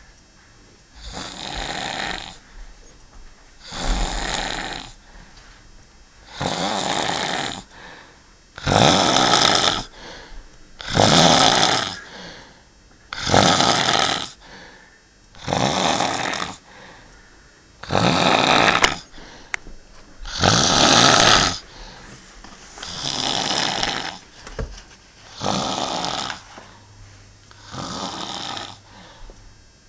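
A person snoring loudly and rhythmically, a harsh rasping snore on each breath roughly every two and a half seconds, about a dozen in all. The snoring is heavy enough to be likened to a water pump.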